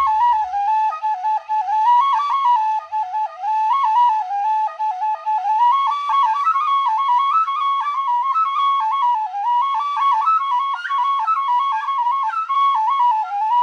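3D-printed penny whistle playing a quick, unbroken tune of stepping notes. The whistle is pitched nearer E-flat than the nominal D.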